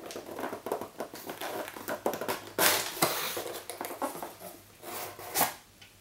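A cardboard box being handled and its lid pulled open, with a run of cardboard scrapes and rustles. The loudest stretches come about two and a half seconds in and again shortly before the end.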